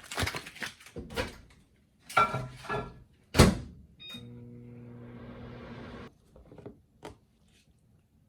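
Kitchen clatter and knocks, ending in one loud thud about three and a half seconds in, then a short high beep and a steady appliance hum for about two seconds that cuts off suddenly, followed by a few light knocks.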